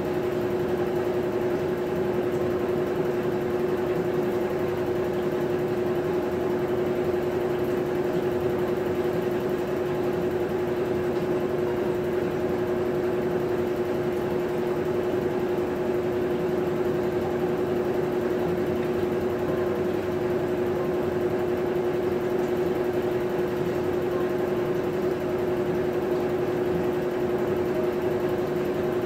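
Maytag top-load washing machine running, a steady motor hum with one strong even tone that holds without change.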